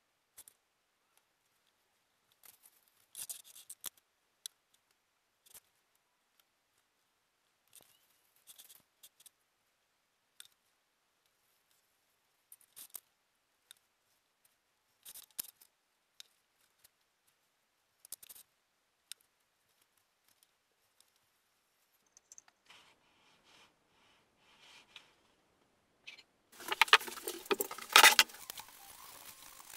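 Sparse short clicks and light scrapes as small wooden trim pieces and tools are handled on a workbench, then a louder spell of rustling and knocking near the end.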